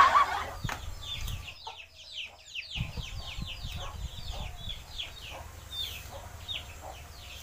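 Chicks peeping: a steady run of short, high, falling chirps, several a second. A low rumble comes and goes in the first few seconds.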